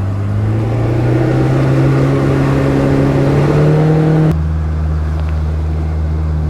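Boat's outboard motor accelerating under way, its pitch climbing steadily over about four seconds with wind and water rush building, then dropping abruptly to a lower steady run.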